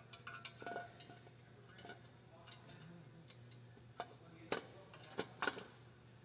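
Scattered, irregular metallic clicks and clinks of hand tools and fasteners being worked on the underside of a car at the transmission bellhousing, over a low steady hum. The sharpest clicks come between about four and five and a half seconds in.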